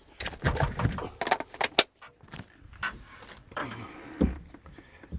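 A run of sharp clicks and rattles from tools being handled, denser in the first two seconds, with a single thump about four seconds in.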